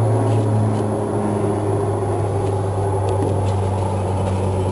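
A steady low engine hum that dips slightly in pitch about two seconds in.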